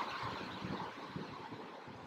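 Quiet room tone: a faint, steady background hiss.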